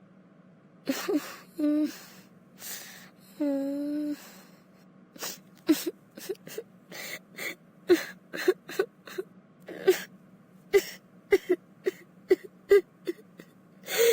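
Cartoon child crying: a few drawn-out whimpering wails at first, then short gasping sobs coming about three a second.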